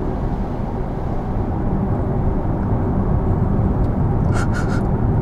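Steady road and tyre noise of a Porsche Taycan Turbo S driving on a wet road, heard from inside the cabin as a continuous low rumble.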